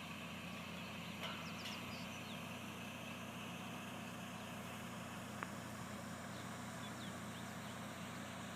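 A steady low mechanical hum, like an engine or generator running, with a few faint short high chirps and a single sharp click about five seconds in.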